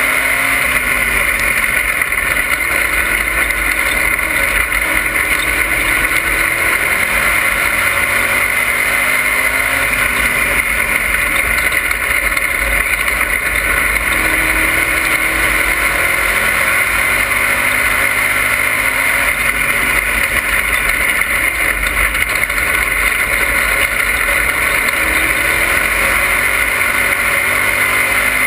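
Dirt-track race car running at racing speed, heard from inside the cockpit: a loud, steady engine and road noise whose pitch rises and falls again and again as the car laps the oval.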